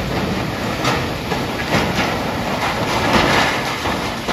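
A Cat long-reach demolition excavator pulling apart a building, with concrete and masonry rubble crashing and clattering down over a steady low rumble. The loudest crash comes about three seconds in.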